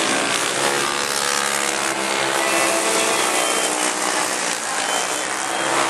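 Racing go-kart engines running at high revs as the karts lap the dirt oval, a steady buzz whose pitch shifts as they accelerate and pass.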